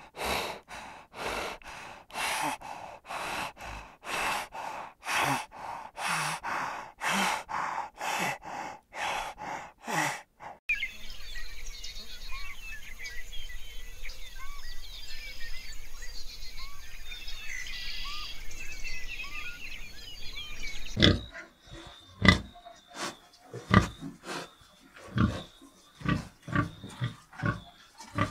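A spotted hyena calling in a quick run of short, evenly repeated calls, about one and a half a second. After about ten seconds this gives way to small high chirps over a steady hiss, and about two-thirds of the way in to a pig grunting in short, sharp grunts.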